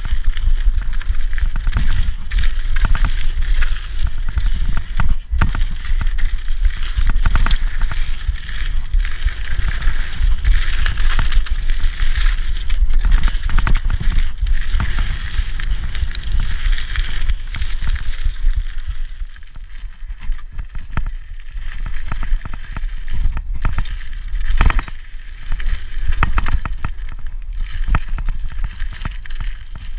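Rigid 1990 Peugeot Hurricane mountain bike ridden fast down a dirt trail: wind buffeting the microphone, Michelin Wildgripper knobbly tyres hissing and crunching over the dirt, and the unsuspended bike rattling and knocking over bumps. It eases off for a few seconds about two-thirds of the way in, then picks up again.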